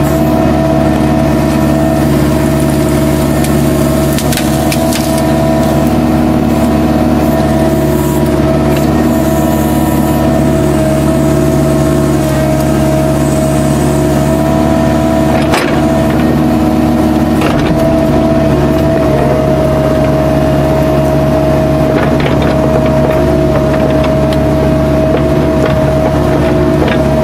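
Kubota U-45 mini excavator's diesel engine running steadily while digging, with a steady whine above it. A few sharp cracks, like wood or roots breaking, stand out, the loudest about sixteen seconds in.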